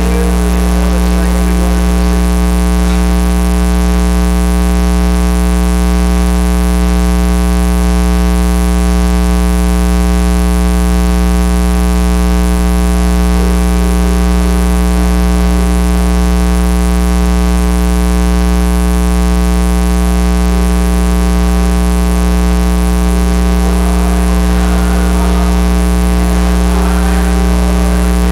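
Loud, steady electrical mains hum and buzz with many overtones, unchanging throughout, the kind a sound system or recording feed picks up.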